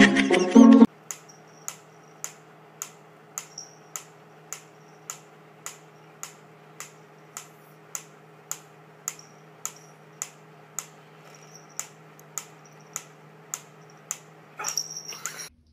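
Wooden pyramid mechanical metronome ticking at a steady beat, a little under two ticks a second.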